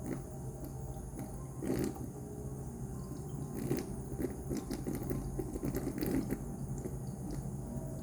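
Anti-gravity water-drop humidifier running: a steady low hum under small water drips, with one sharp drip just before two seconds in and a quick run of drips in the middle.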